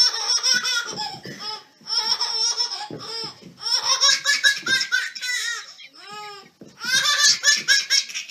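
A baby's belly laughter, coming in several fits of rapid, high-pitched pulses with short breaks between them.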